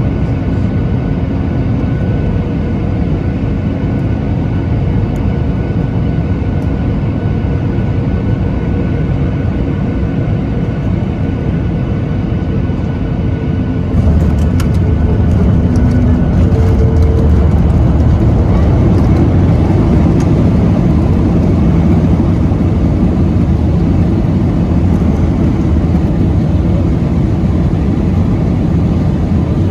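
Boeing 737 MAX 8 cabin noise: a steady drone of engines and airflow with a few faint steady tones. About fourteen seconds in it jumps suddenly to a louder, deeper rumble with scattered rattling.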